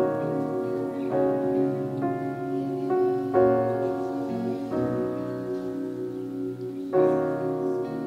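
Slow piano chords, each struck and left to ring, with a new chord coming every one to three seconds.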